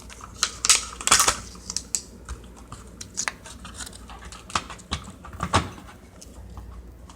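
Plastic smoke detector housing being handled and fitted onto its mounting base: a run of irregular clicks and knocks, the loudest about a second in.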